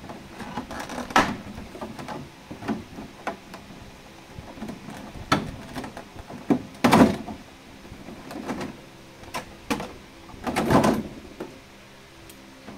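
Clear plastic blister tray and plastic wrapping handled by hand: irregular crackles, clacks and rustles of stiff plastic, the loudest about seven seconds in and again around eleven seconds in.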